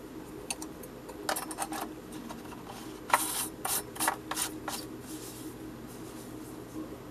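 Plastic cover with a stainless-steel mesh being twisted back onto a Xiaomi Mijia lint remover's head. The cover's rim rubs and clicks against the body in a series of short scrapes, loudest about three to five seconds in.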